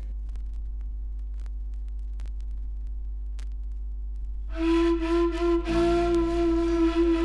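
Background music: a quiet, steady low drone, then a louder held melodic note with a fuller backing comes in about four and a half seconds in.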